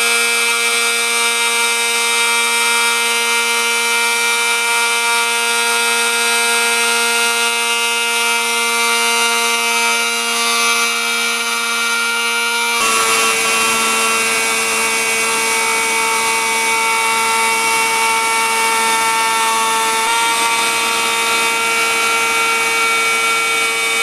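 Dremel rotary tool running at high speed as the spindle of a CNC router, its bit cutting a stencil outline into a clear plastic sheet: a loud, steady motor whine with a hiss above it. The tone shifts slightly about halfway through.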